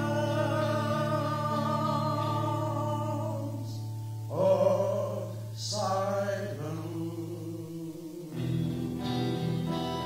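A man singing over electric guitar chords: a long held note, then two louder rising phrases. About eight seconds in the voice stops and the guitar carries on alone.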